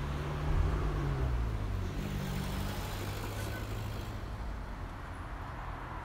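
A motor vehicle's engine passing on the road, loudest about half a second in and then fading away, over steady traffic noise.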